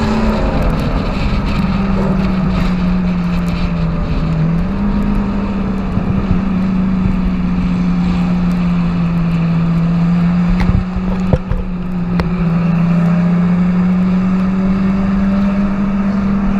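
A supercar's engine, heard from a camera mounted on its bodywork, drones at steady cruising revs, its pitch dipping and climbing gently as the car drives. There are a couple of brief sharp knocks about eleven seconds in.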